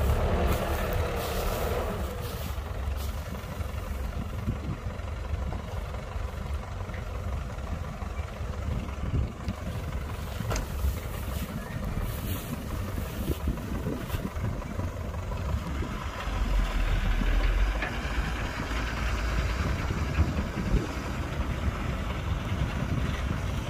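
Heavy diesel construction machinery running steadily, with a low rumble that grows louder for a moment about two-thirds of the way through.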